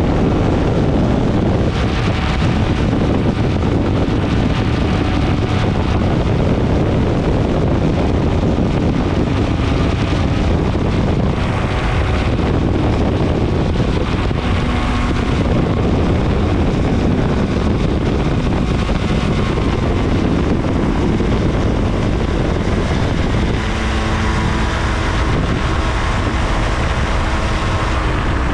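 Challenger II ultralight's engine running at power, with heavy wind buffeting on the microphone. About 23 seconds in, the engine is throttled back to a lower, steadier note.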